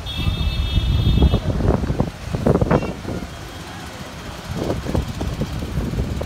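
Storm wind gusting and buffeting the microphone in uneven surges, strongest in the first two seconds and again near the end. A vehicle horn sounds through about the first second and a half.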